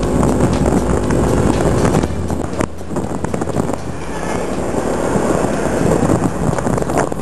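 SYM Joyride RV 180 scooter's single-cylinder four-stroke engine running under way, with wind rushing over the microphone. The steady engine hum drops back about two seconds in, leaving mostly road and wind noise.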